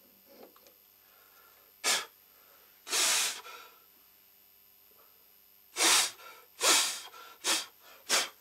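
Six short bursts of rushing, hissing air, the second a little longer than the rest, as swarf is blown off the freshly reamed wheel and chuck.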